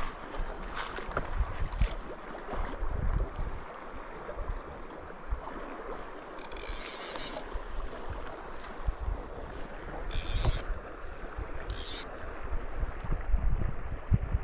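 Shallow river current rushing steadily over gravel, with wind buffeting the microphone in low rumbles. Three short bursts of bright hiss come about six, ten and twelve seconds in.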